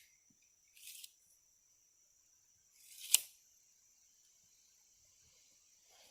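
Two short scrapes in sand, about a second in and about three seconds in, the second sharper and louder, as the sand under the sawmill pad's planks is worked. A faint steady high-pitched drone runs underneath.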